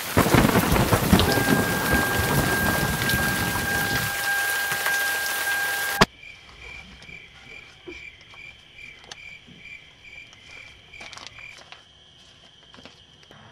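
Thunder rumbling over heavy rain, cut off abruptly about six seconds in. After it comes a much quieter stretch with a faint high chirp repeating steadily, about two or three times a second.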